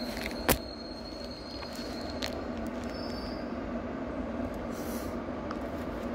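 Electric locomotive-hauled goods train of open wagons rolling slowly past, with a steady rumble and a high, thin wheel squeal that fades out about two seconds in. A single sharp knock about half a second in.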